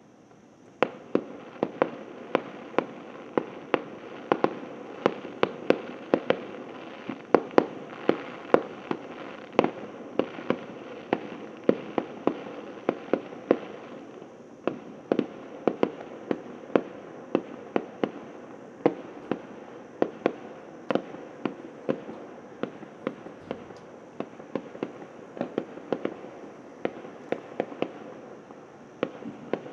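Fireworks bursting in a rapid, steady run of sharp bangs, roughly two a second, beginning about a second in.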